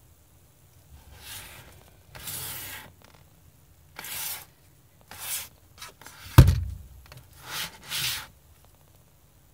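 Hands rubbing and scraping over the housing of a large electric fishing reel as it is turned over and handled, in a series of short bursts, with one sharp knock of the reel against the surface about six seconds in.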